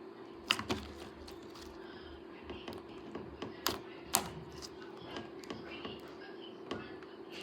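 Slime being handled, making irregular sharp clicks and sticky pops, a few louder than the rest, over a steady low hum.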